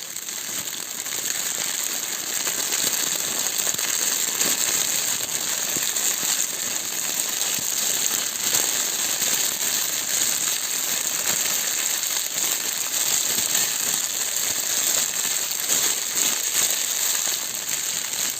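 Plastic bag crinkled and pressed continuously as a rain sound effect: a steady, dense crackle like rainfall.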